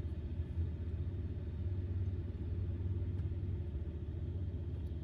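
Steady low rumble of a running motor, with no single event standing out.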